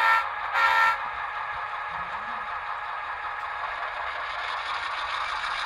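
Sound-equipped model diesel locomotive sounding two short horn blasts, then its diesel engine sound running steadily and building slightly as the locomotive pulls away.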